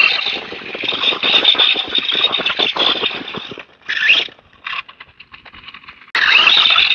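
Brushless motor of an FTX Outlaw RC truck whining under throttle bursts, the pitch rising each time it speeds up: one long run of about three and a half seconds, a short burst just after, a few brief blips, then another burst near the end.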